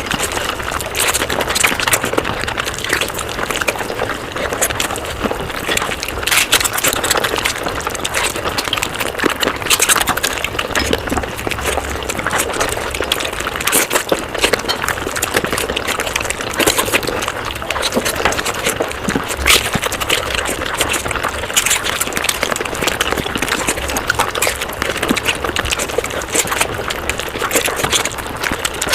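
Mukbang eating sounds played at five times normal speed: a dense, unbroken stream of rapid chewing clicks and smacks.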